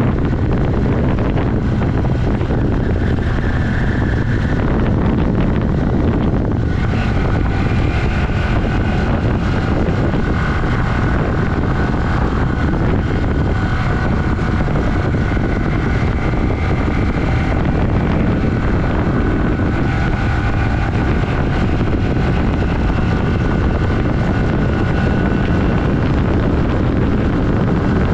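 1982 Yamaha XS400 Maxim's air-cooled parallel-twin engine running steadily with the bike under way at road speed, mixed with heavy wind rush on the microphone.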